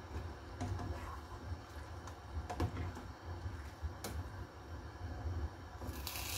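A silicone spatula stirring noodle soup in a stainless-steel saucepan: scattered soft clicks and taps against the pot, with a brief louder scrape near the end, over a steady low hum.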